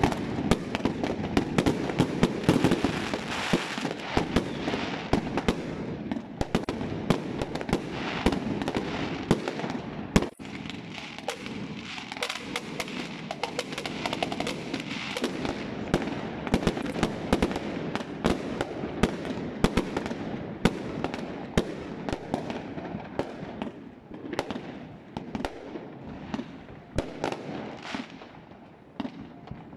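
Many fireworks going off at once: a dense, continuous run of bangs and crackling from bursting aerial shells, with sharper single reports standing out. The barrage thins and grows quieter near the end.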